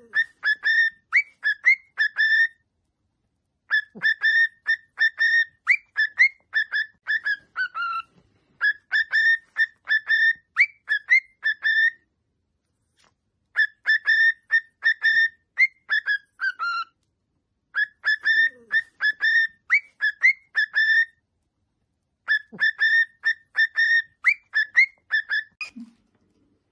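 Male cockatiel whistling its song: phrases of quick, sharply rising whistled notes, about six phrases of a few seconds each, with short pauses between them.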